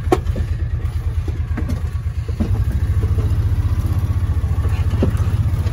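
Small utility vehicle's engine running with a steady low throb that gets louder about two and a half seconds in, with a few light knocks over it.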